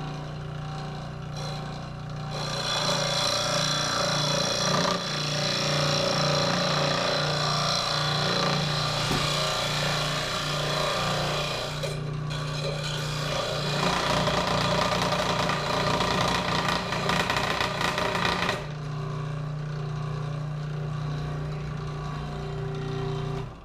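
Benchtop scroll saw running, with a steady motor hum throughout. From about two seconds in, its blade rasps through a wooden base, with a brief break near the middle. Near the end the saw runs without cutting, then it is switched off.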